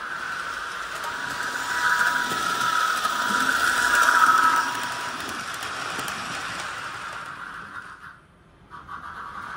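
Model train running past close by on the layout track, louder as it goes by around four seconds in, then fading away. The sound drops out briefly near the end.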